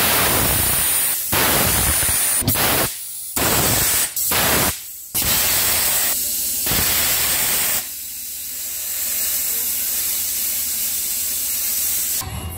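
Compressed air hissing from an air hose chuck on the valve stem of a stretched 155/60R13 tire on a 7J wheel. It comes in several on-off bursts, then flows steadily and a little quieter. The bead fails to seat and seal on the rim this way.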